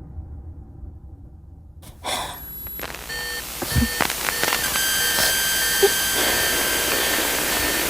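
A low rumble fading out, then a sudden burst of static about two seconds in, followed by a steady electronic hiss with several steady high tones and a few clicks.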